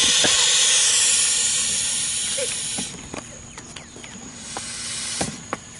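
Smoke bomb spewing smoke with a loud hiss. The hiss drops off sharply about three seconds in, followed by a few faint clicks and a shorter swell of hiss near the end.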